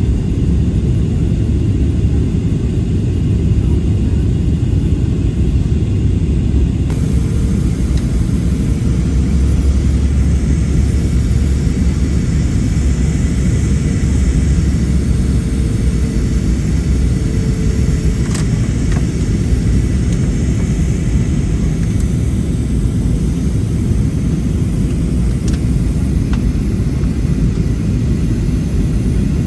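Steady low rumble of a jet airliner's engines and airflow heard inside the passenger cabin.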